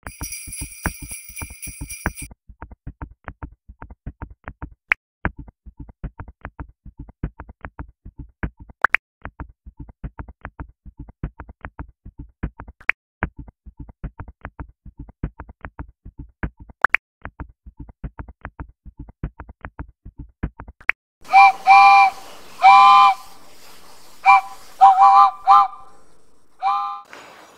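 Playful intro soundtrack: a short bright chime, then a steady light clicking beat of about four ticks a second, ending with several short whistle-like notes.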